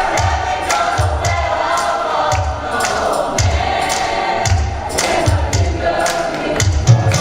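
Gospel choir singing over a live band with a steady beat: low bass thumps and crisp percussion hits.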